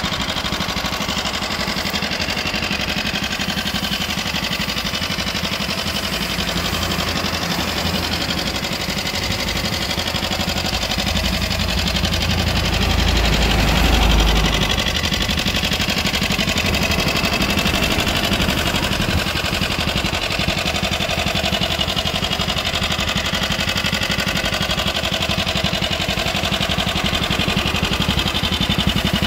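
1958 Honda Super Cub C100's 49cc single-cylinder four-stroke engine, freshly overhauled with a new piston, idling steadily. It grows louder and deeper for a few seconds about halfway through.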